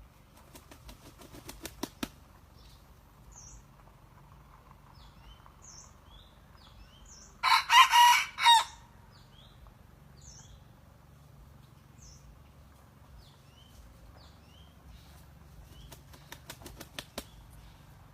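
Junglefowl rooster beating its wings in a quick accelerating run of claps, then giving one short crow about halfway through. Its wings clap again near the end, with small bird chirps in the background.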